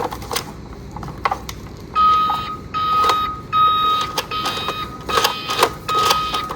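Electronic beeping from a battery-operated toy vehicle's sound chip: one steady high tone in long on-off beeps, starting about two seconds in, over scattered sharp plastic clicks.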